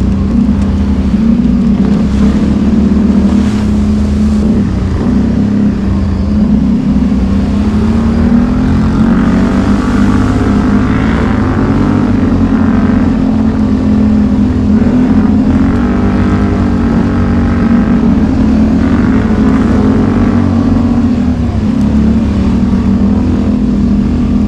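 ATV engine running steadily under way on a dirt trail, its note rising and falling a little as the throttle changes.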